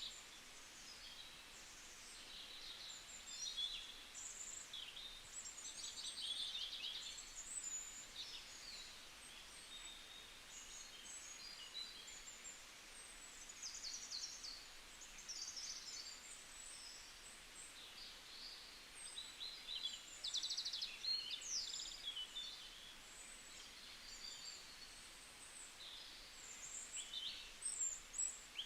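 Several small birds singing and chirping together, a mix of quick trills and warbled phrases, over a faint steady hiss of background noise.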